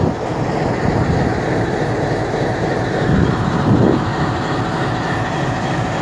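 Goods train rolling past on the adjacent track: a steady rumble of wheels on rail with clattering, hauled by a diesel locomotive. The noise swells briefly about three to four seconds in.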